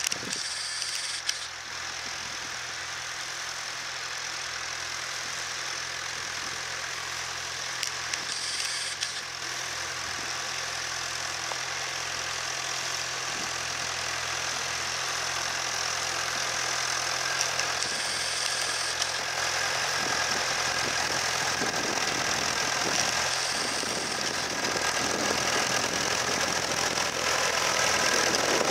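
Nuffield (BMC) Mini tractor engine running steadily under load, pulling a two-furrow plough. It grows gradually louder as the tractor comes closer.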